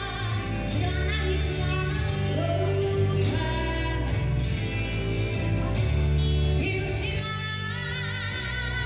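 Pop-rock band music with a steady, pulsing bass line. A long held note with vibrato comes in near the end.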